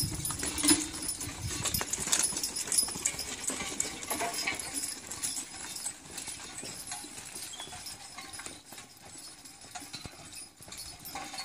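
Hooves of a six-horse draft team clopping as they walk on a dirt lane. The hoofbeats are loudest at first and fade as the team moves off.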